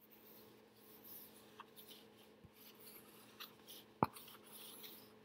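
Faint scratching of a dry-erase marker being written across a small whiteboard, with a sharp click about four seconds in.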